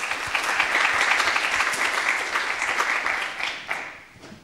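Audience applause, many people clapping, building quickly at the start and dying away near the end.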